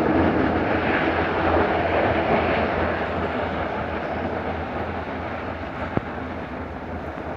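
A diesel locomotive and its train rumble steadily as they pull away, slowly fading. There is one sharp click about six seconds in.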